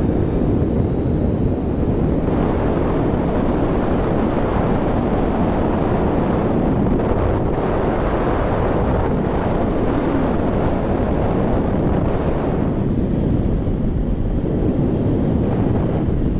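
Wind rushing over the microphone of a rider on a Kawasaki Z1000 motorcycle at road speed, a steady roar with the bike's running gear under it.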